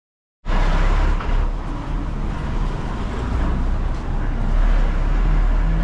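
Silence for about half a second, then street traffic noise starts suddenly: passing vehicles with a steady low engine rumble.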